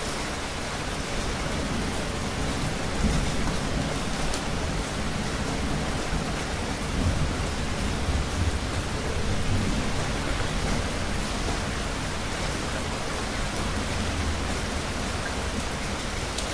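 Steady heavy rain falling, with low thunder rumbling in several slow swells.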